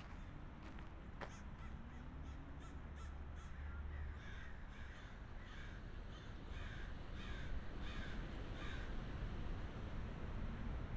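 A crow cawing in a quick run of about ten calls, roughly two a second, over a low steady background rumble.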